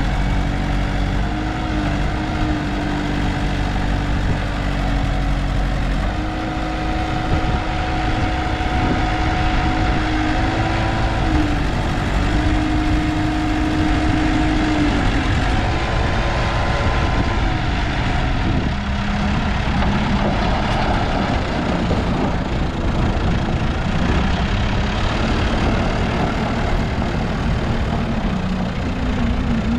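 1995 JCB 3CX backhoe loader's diesel engine running steadily, its pitch stepping up and down a few times.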